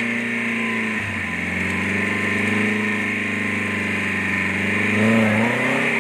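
Off-road jeep's engine running under load, its pitch dipping about a second in and rising again around five seconds.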